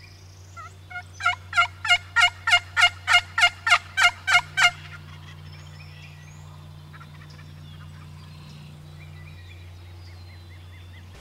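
Turkey calling: a run of about a dozen loud, evenly spaced yelping notes lasting about four seconds, then only faint sounds. A steady low electrical hum runs underneath.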